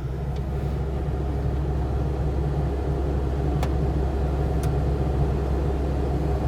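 The Case SV280B skid steer's four-cylinder turbocharged diesel engine running steadily at idle, with a deep even rumble that grows slightly louder through the stretch. Two faint clicks sound in the middle.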